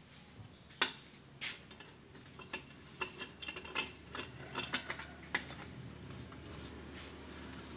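Irregular small metal clicks and taps as a metal tube insert is handled and fitted into a motorcycle muffler outlet and a thin metal pin is pushed into it, with two louder clicks about a second and a second and a half in.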